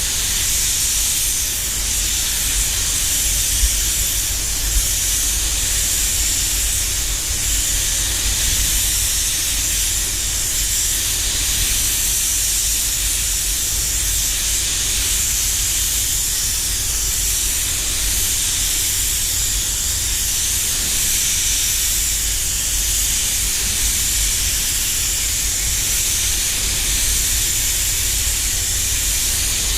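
Walcom Carboni 360 spray gun hissing steadily as it sprays clear coat, a continuous high air hiss over a low rumble.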